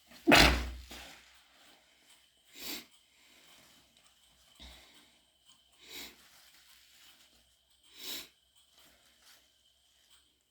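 A loud, wet, stifled sneeze about a third of a second in, then three short wet sniffles a few seconds apart from a runny nose.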